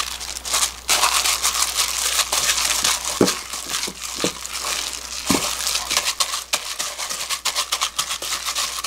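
Thin plastic disposable gloves crinkling as a gloved hand kneads and presses down sticky, risen makgeolli-fermented dough in a stainless steel bowl, with a few soft thuds of the dough against the bowl.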